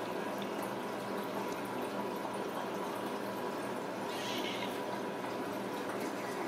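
Steady background hiss with a low hum, and a brief soft rustle about four seconds in.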